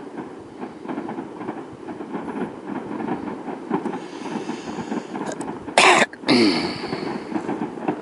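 Distant fireworks display: a steady rumble of many overlapping bangs and crackles. About six seconds in comes a much louder sharp burst, followed by a second loud crack that fades out.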